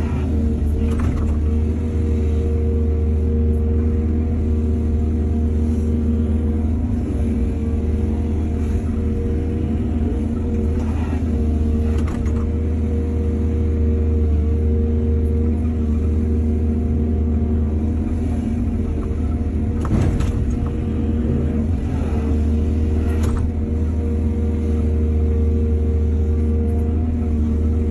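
Excavator's diesel engine running steadily under load, with a few short knocks along the way, louder near the two-thirds mark.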